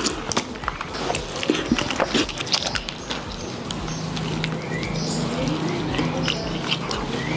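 A man chewing and smacking his lips as he eats rice with fish curry by hand, with many short smacks and clicks. A low steady hum joins about four seconds in.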